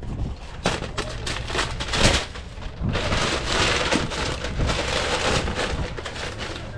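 Paper hot dog wrappers and a brown paper bag crinkling and rustling as wrapped hot dogs are bagged by hand, with a few sharper taps of handling along the way.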